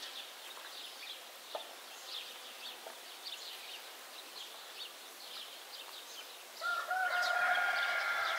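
Small birds chirping throughout, with many short high chirps. Near the end a rooster crows, one long drawn-out call that is the loudest sound.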